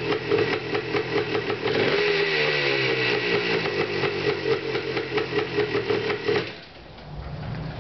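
Honda three-wheeler engine running with a steady pulsing note; about two seconds in the revs sag and then settle again. About six and a half seconds in the engine sound drops away suddenly, leaving a quieter low hum.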